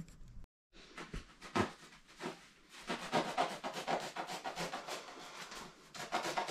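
Foam pipe-insulation tube being worked with a knife: a quick run of short scratchy rubs and scrapes of the blade and hands on the foam, after a brief gap in the sound about half a second in.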